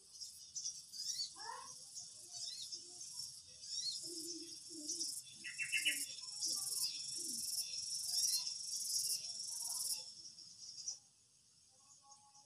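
Birds chirping and tweeting over a steady, high insect trill, with a fast pulsing insect chirp from about five to ten seconds in. The sound drops off sharply near the end.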